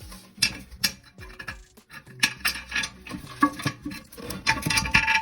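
Small metal tank bolts, washers and nuts clicking, clinking and scraping against the porcelain of a toilet tank and bowl as the bolts are put in, in irregular knocks and short rubs.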